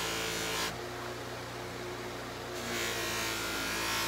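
Electric buffer motor running steadily with cloth buffing wheels, and the hiss of a steel knife blade being polished against a wheel. The hiss drops away for about two seconds starting under a second in, leaving the motor hum, then comes back.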